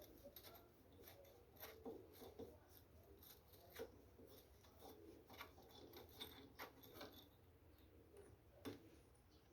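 Faint scattered metallic clicks and scrapes of hand tools, an adjustable wrench and a homemade holding tool, being worked on the clutch of a Honda CG 125 Titan engine.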